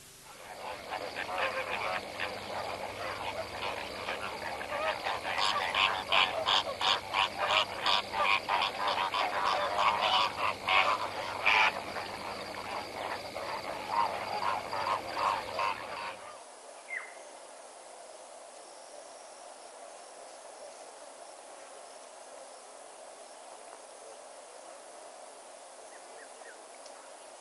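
A dense chorus of frogs croaking, with rapid pulsed calls overlapping, for about sixteen seconds. It then cuts off abruptly to a faint, steady outdoor background hiss with one brief chirp.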